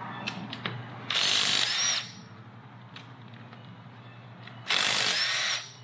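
Handheld power tool run in two short bursts of just under a second each, about three and a half seconds apart, each with a whine as it spins up, over a steady low hum.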